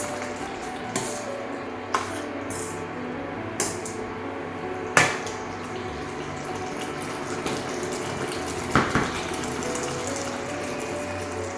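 A spatula or spoon stirring thick chicken gravy in a metal kadai, knocking against the pan in a handful of sharp clinks, the loudest about halfway through and a quick double knock later on, over a wet, mushy stirring sound.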